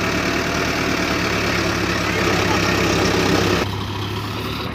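Tractor diesel engine running steadily, its sound dropping and turning duller about three and a half seconds in.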